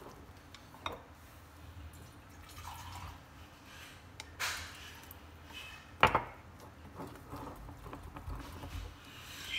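Wooden chopsticks stirring pancake batter, made from packaged mix and water, in a glass bowl, with scattered light clicks of the sticks against the glass and one sharper knock about six seconds in.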